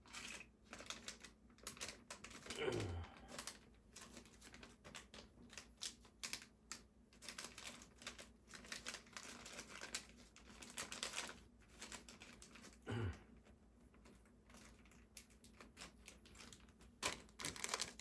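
Irregular small clicks and rustles of hands handling small plastic parts and packaging, with a brief low falling sound twice, about three seconds in and again around thirteen seconds in.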